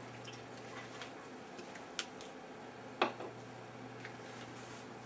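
Steady low hum of an infrared BGA rework station heating a PS3 board, with faint scattered ticks and two sharper clicks, the louder about three seconds in.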